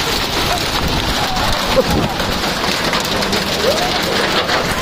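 Hailstones mixed with rain pelting a railway platform and tracks in a heavy hailstorm, a dense, steady clatter of small hits. Faint voices can be heard under it.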